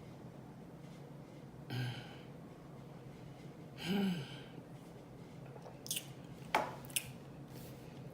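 A person drinking from a two-litre bottle while holding back burps: a short strained hum about two seconds in, then a longer groan rising and falling in pitch around four seconds. A few sharp mouth or swallowing clicks follow near the end.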